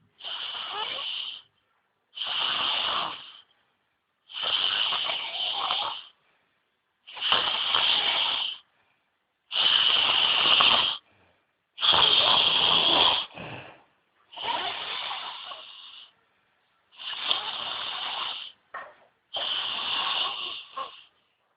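A person snoring: about nine snores, one every two to three seconds, each lasting over a second with silent gaps between.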